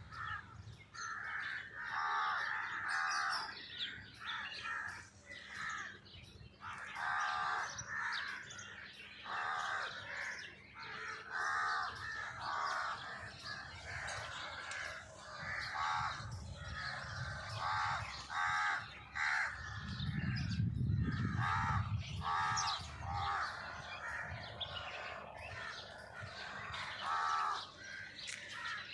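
Birds calling and chirping outdoors, many short harsh calls repeating over and over with higher chirps between them. A low rumble rises for a couple of seconds about twenty seconds in.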